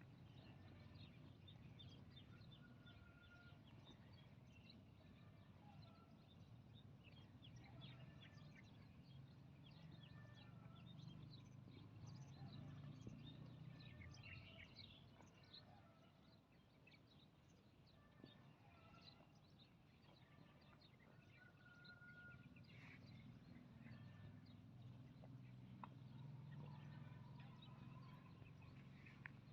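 Faint outdoor ambience of scattered bird chirps and short calls, with a low rumble that swells and fades twice.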